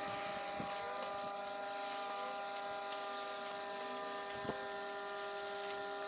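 Microwave oven running: a steady electrical hum-buzz with a few faint ticks.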